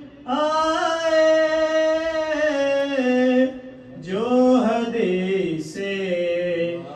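A man chanting a devotional recitation without accompaniment: two long, held melodic phrases of about three seconds each, with a short breath between them.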